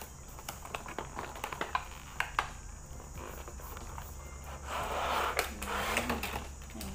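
Cardboard product box being handled: scattered light taps and clicks, then a scraping rustle of about two seconds as the inner tray slides out of its sleeve.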